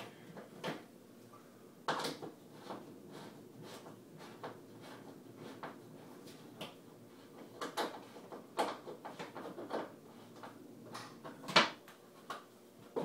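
Irregular knocks and clicks of a metal wall-heater mounting bracket and a spirit level being handled and set against a wall, with the sharpest knock near the end.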